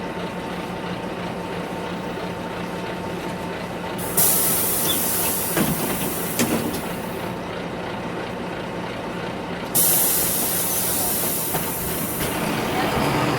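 Inside a city bus: the engine runs with a steady drone, and twice a loud hiss of compressed air from the bus's pneumatic system cuts in suddenly, about four seconds in and again near ten seconds, each lasting a few seconds. A sharp click sounds during the first hiss.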